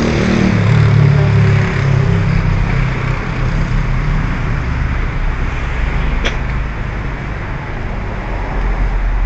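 Street traffic: a car engine running close by, strongest in the first two seconds, over a steady hum of passing traffic, with one sharp click a little past six seconds in.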